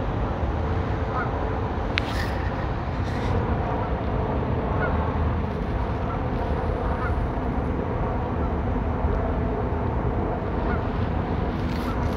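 Steady city street traffic rumble, with a few brief honks, likely car horns, about two and three seconds in and again near the end.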